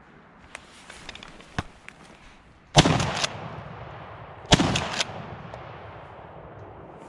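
Two shotgun shots, under two seconds apart, each ringing out and fading slowly.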